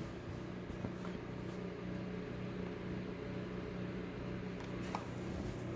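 A low steady hum in a small room, with a few faint clicks. No smoke alarm is sounding.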